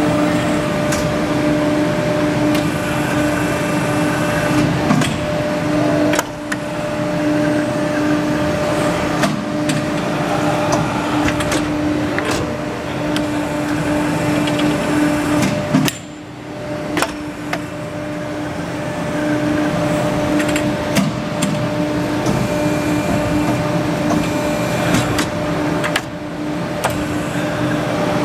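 CNC tube bending machine running: a steady mechanical hum with scattered clicks and knocks as it works, and short dips in level about every ten seconds.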